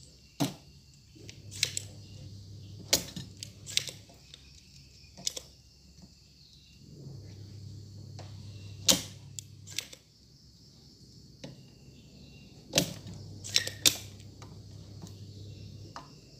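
Spring-loaded desoldering pump (solder sucker) being cocked and fired again and again, giving a dozen or so sharp snaps at irregular spacing, while solder is cleared from the pins of a shorted output transistor. A low hum comes and goes underneath.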